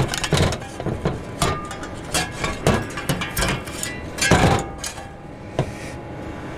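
Metal parts of a gas heater being struck with a hammer to knock a stuck part loose: a series of irregular knocks and clanks, the loudest about four seconds in.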